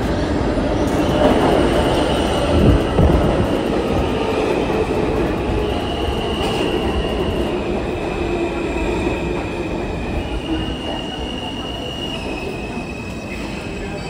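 New York City Subway F train, R160 cars, pulling into an underground station. The wheels rumble on the rails and give off high, steady squeals that change pitch. The sound slowly fades as the train slows along the platform.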